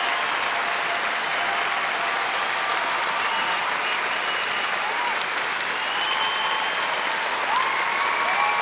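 A large concert-hall audience applauding steadily, a dense and even clapping.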